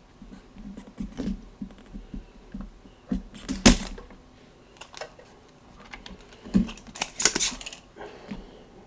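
Irregular small clicks and taps of tools and parts being handled on a workbench, with two louder sharp clacks about three and a half and seven seconds in.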